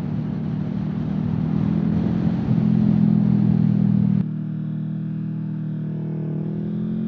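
Honda CBR500R's 471 cc parallel-twin engine, fitted with a Coffman Shorty exhaust, running steadily under way with wind noise on the helmet or body-mounted microphone. About four seconds in the wind noise drops suddenly and the engine carries on at a lower speed.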